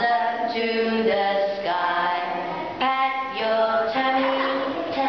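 A group of women and young children singing a song together, in long held notes one after another.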